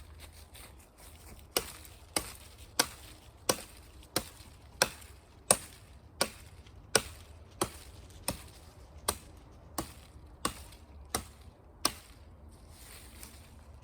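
An axe chopping into the end of a cut tree pole to sharpen it to a point: about sixteen sharp, evenly paced blows, a little over one a second, which stop a couple of seconds before the end.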